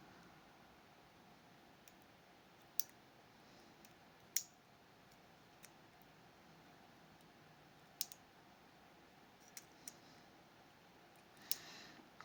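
About six scattered, sharp little clicks of small metal lock parts being handled: the levers of a disassembled Fichet 484 lever lock being moved and tapped.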